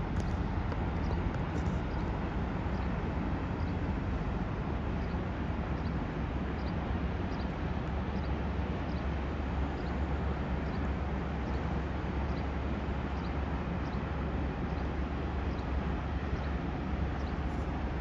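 Steady low rumble of a large freighter's engines carrying across the water as she passes. Faint high chirps repeat at an even pace over it.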